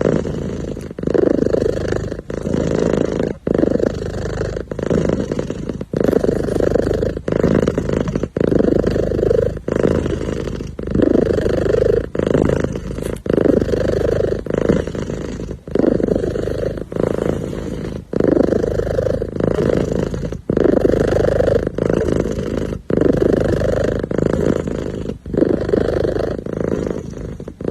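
Kitten purring steadily, a continuous low rumble that swells and dips with each breath, about once every second and a bit.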